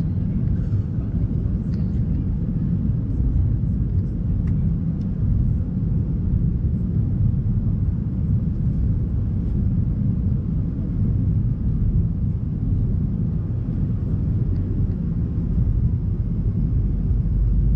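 Steady low rumble of a McDonnell Douglas MD-88 airliner heard inside the cabin, the noise of its two tail-mounted Pratt & Whitney JT8D turbofans and the airflow, holding even throughout.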